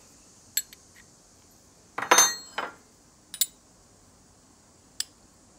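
A steel wrench and a diesel injector body clinking together as they are handled, during the job of loosening the injector's bottom nozzle nut. There are about five sharp metallic clinks, the loudest about two seconds in, with a short ring.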